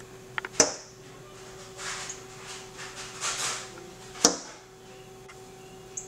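Male northern cardinal striking the window glass twice, sharp knocks about half a second in and again just past four seconds, with softer rustling between them as it attacks its own reflection.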